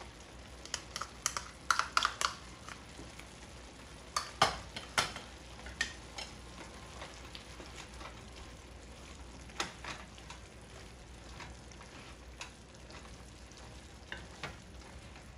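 Diced chicken, onion and peppers sizzling in a nonstick frying pan as a wooden spoon stirs in tomato paste, with irregular clicks and scrapes of the spoon against the pan, busiest in the first few seconds.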